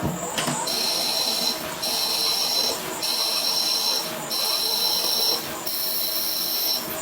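CNC machine at work: a high-pitched two-tone whine that switches on and off about once a second over a steady hiss.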